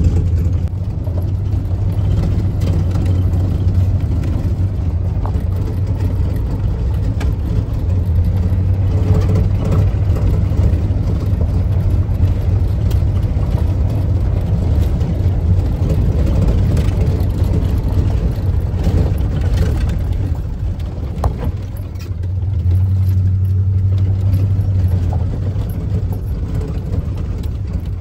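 A van driving slowly on a wet gravel road, heard from inside the cab: a steady low engine and road drone. It eases off about three-quarters of the way through, then picks up again.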